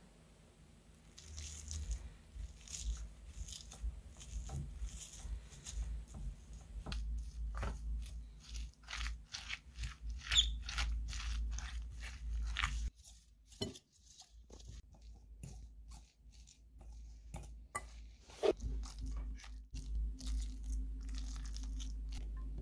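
Stuffing of boiled potato, sardine fillets, chopped parsley, onion and raw egg being mashed and stirred with a utensil in a glass bowl: many short, irregular strokes, with a brief pause about halfway through.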